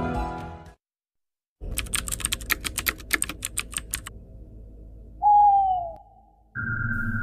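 Intro sound effects: music fades out, and after a short pause a typing sound effect of quick clicks runs for about two and a half seconds. A single short falling tone follows about five seconds in, and a steady tone with a low hum starts near the end.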